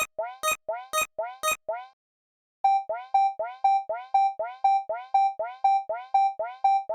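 Japanese railroad crossing warning bell, the electronic "kan-kan", ringing about four times a second. It stops about two seconds in and, after a short gap, another crossing bell with a different tone starts up at the same pace.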